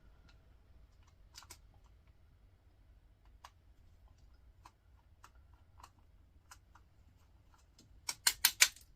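Small scattered clicks and taps of a screwdriver working at a stubborn screw in a small plastic-cased appliance, ending in a quick run of about five louder clicks near the end.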